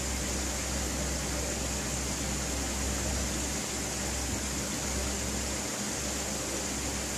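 Steady room tone: a low hum under an even hiss, with no change throughout.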